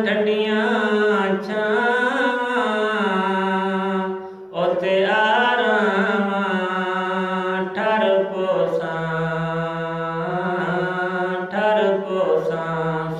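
A man singing a Saraiki naat solo and unaccompanied, in long, drawn-out melodic phrases with one short breath break about four and a half seconds in.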